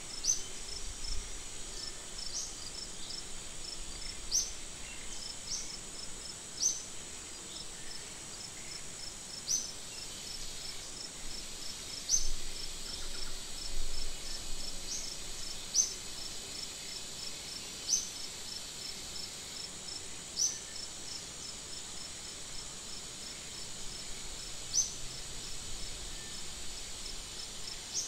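Insects calling in the forest: a steady high-pitched drone, a fast ticking trill, and short sharp chirps repeating every second or two.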